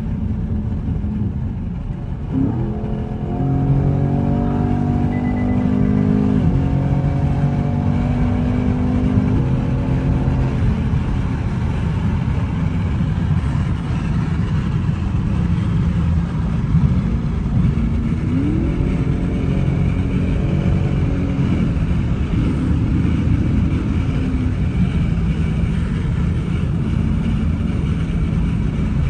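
Chevrolet Camaro 2SS's 6.2-litre V8 running through a newly installed aftermarket exhaust while driving, the engine note climbing with the revs and dropping at each gear change.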